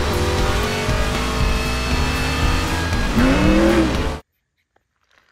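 Race car engine sound at speed with music underneath, and a squeal that rises and falls about three seconds in, like tyres. It cuts off suddenly about four seconds in.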